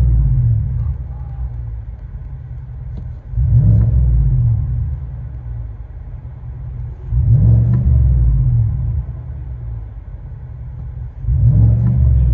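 2019 GMC Sierra Denali's 6.2-litre V8 with a muffler delete (resonators kept), heard from inside the cab: the engine is blipped four times about four seconds apart, each rev rising and falling back to a steady idle.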